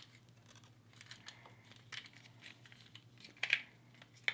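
Small metal clicks and rattles of a dimple key and the metal head of a cable bike lock being handled, with a louder clatter about three and a half seconds in. A faint steady low hum runs underneath.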